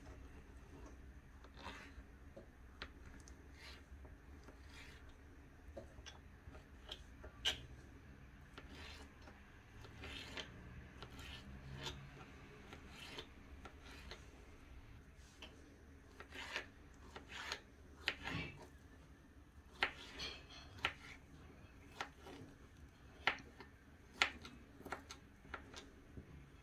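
Small kitchen knife dicing a soft peeled avocado on a plastic cutting board: faint, irregular taps of the blade hitting the board, coming more often and a little louder in the second half.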